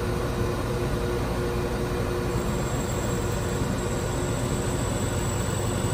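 KeyMe kiosk's key-cutting machine running steadily as it cuts a key blank: an even mechanical hum with a faint high whine joining about two seconds in.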